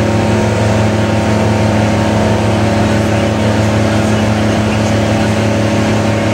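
New Holland T7060 tractor's 6.7-litre FPT six-cylinder diesel running steadily at full load, driving a PTO dynamometer at about 1000 rpm PTO speed.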